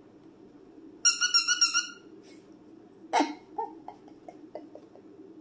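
Squeaker inside a plush dog-toy doll squeezed about a second in, giving a high, pulsing squeak that lasts about a second. A shorter sound and a few soft clicks follow about two seconds later.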